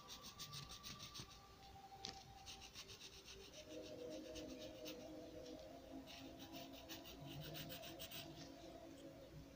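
Faint scratching of a graphite pencil on paper in quick back-and-forth strokes, several a second, as in drawing or shading.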